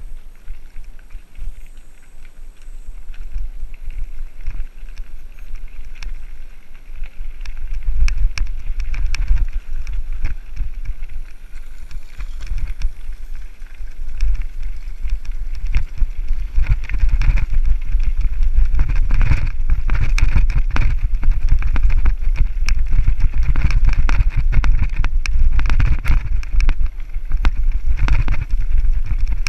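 Mountain bike descending a rough downhill trail: wind rumbling on the microphone and the bike rattling and knocking over bumps. It grows louder about a quarter of the way in as speed builds, then stays loud.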